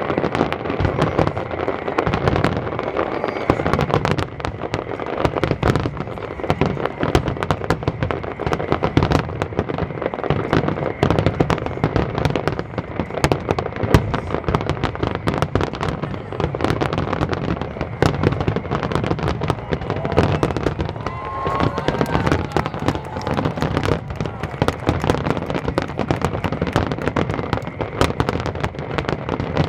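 Fireworks display: a dense, continuous barrage of bangs and crackling pops going off in quick, irregular succession.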